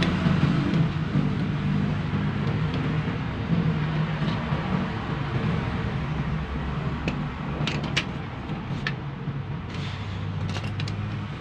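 Steady low mechanical hum, with a few light metallic clicks about seven to eight seconds in and again near the end as the parts of a car power-window regulator are handled.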